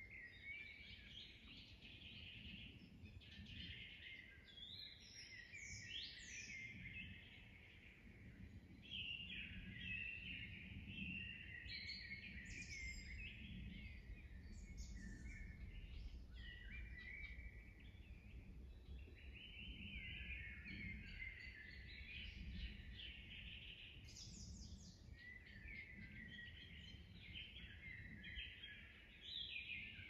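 Several songbirds singing and calling at once, short chirps and trills overlapping without a break, over a low steady rumble of outdoor background noise.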